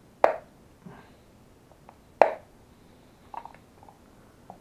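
Plastic shell of a Powerball wrist gyroscope being pressed hard together by hand: two loud sharp clicks about two seconds apart, then a few fainter clicks.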